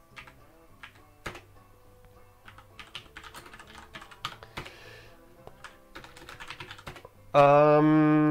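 Scattered keystrokes on a computer keyboard as commands are typed, over faint background music. About seven seconds in, a loud, steady hum comes in, holds for about a second and a half, and then stops abruptly.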